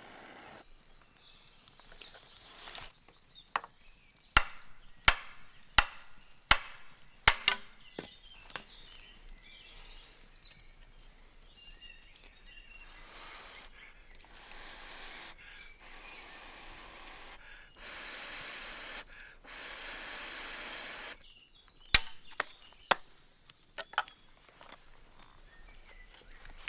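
Hard, sharp knocks and cracks as red deer antler, scorched brittle, is struck to break it: a quick run of about eight knocks in the first third, and a few more near the end. Between them are stretches of steady scraping, as a flint tool is worked over the bone.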